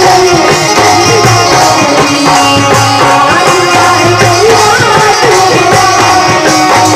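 Bhojpuri stage song: a woman sings into a handheld microphone over loud, dense backing music with a steady drum beat.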